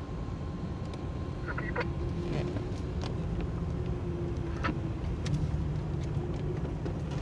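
Steady road and engine noise of a car moving in slow, dense traffic, heard from inside the cabin, with a few light clicks.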